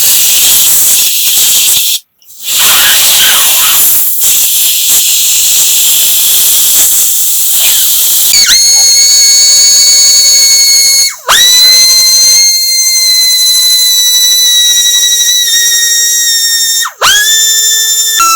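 A loud, steady hiss of compressed air, broken twice by short pauses. From about halfway, a small electric rotary tool whines at a steady pitch, spinning up from a stop three times.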